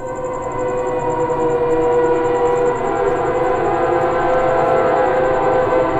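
Dramatic background-score sting: a sustained synthesized chord that swells in, holds steady for several seconds and cuts off suddenly.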